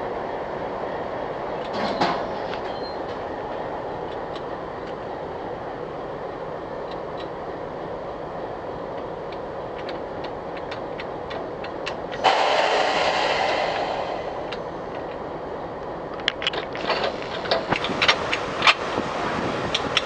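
Steady engine noise of a standing train while the coupling between locomotive and coach is worked: about twelve seconds in a loud hiss of air lasting about two seconds, typical of a brake hose being connected or vented, then a quick run of sharp metal clanks near the end.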